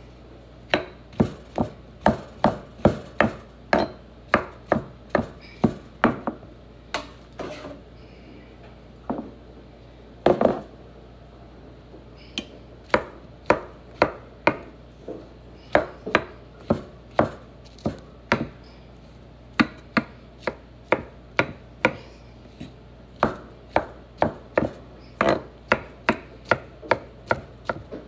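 Kitchen knife chopping mushrooms on a wooden cutting board: runs of sharp knocks, about two or three a second, broken by a few short pauses, with one longer, louder noise about ten seconds in.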